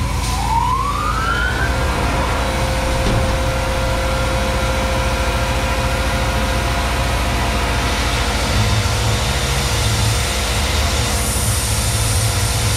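Tormach 1100M CNC mill spindle spinning up with a rising whine just after the start, then running steadily at about 7500 rpm over a steady hiss as a 1/8-inch end mill works a small aluminum part. A higher hiss joins near the end.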